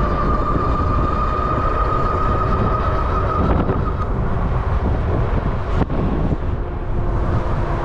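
Riding on a personal electric vehicle at speed: steady wind and road rumble on the microphone, with the motor's steady whine rising slightly in pitch, then fading out about four seconds in.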